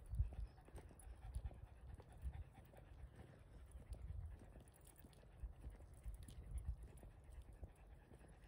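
Footsteps on a walk, low thuds a little more than once a second, with a dog panting.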